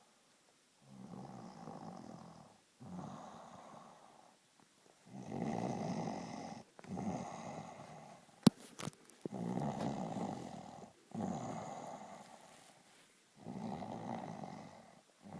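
Snoring: about seven long snores, each a second or two with short pauses between. Two sharp clicks come near the middle.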